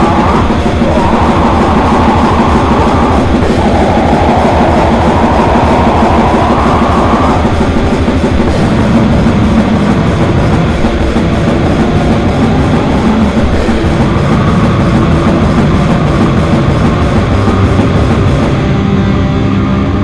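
Loud extreme metal (slam/sludge): distorted guitars and drum kit playing a dense, unbroken wall of sound over a fast, even drum pulse.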